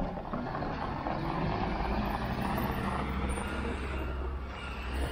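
Engine of a large road vehicle such as a truck or bus running on the street: a steady low rumble that grows stronger about a second and a half in.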